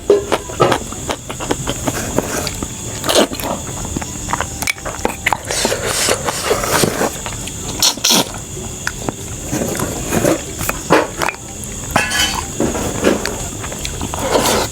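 Close-up eating sounds: a person chewing and making mouth noises, heard as a string of irregular clicks and short soft bursts.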